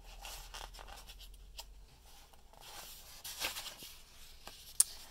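Paper page of a picture book rustling and sliding as it is turned by hand, with a sharp click near the end.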